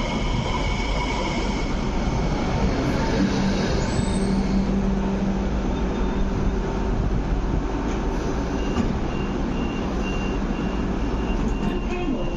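Hong Kong MTR Light Rail CRRC Phase 5 light rail vehicle running along the platform: a steady rumble of wheels on rail with high whining tones at first, giving way to a low steady hum a few seconds in.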